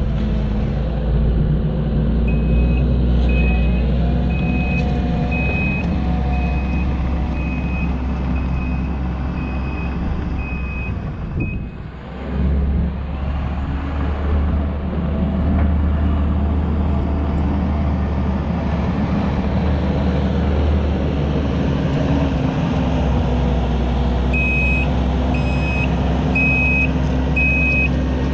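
Kubota SVL90-2 compact track loader's four-cylinder turbo diesel running steadily as it works topsoil, its backup alarm beeping about once every three-quarters of a second while it reverses. The beeping stops about a third of the way in, the engine dips briefly right after, and the alarm starts again near the end.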